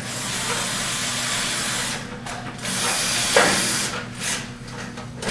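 Cordless drill/driver driving a screw into the sheet-metal fixture channel to mount a ballast: a steady run of about two seconds, a short pause, then a second, shorter run about three seconds in.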